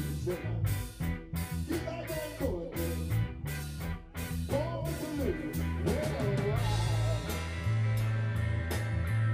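Live blues-rock band playing: electric guitar, bass guitar and drum kit, with a steady drum beat and a sustained bass line.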